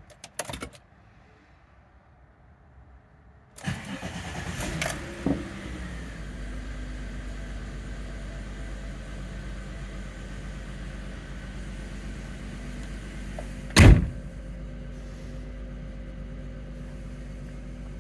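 A few clicks, then about three and a half seconds in the Volkswagen Eurovan's engine cranks briefly, catches and settles into a steady idle: a cold start after sitting a couple of days in cold weather. A single loud thump about fourteen seconds in.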